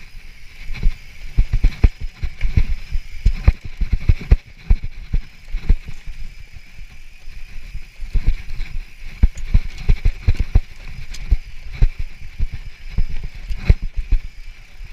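Mountain bike descending rough, dry singletrack at speed: a continuous, irregular clatter of low thumps and knocks as the tyres and suspension hit rocks and roots, over a steady hiss of the tyres rolling on dirt.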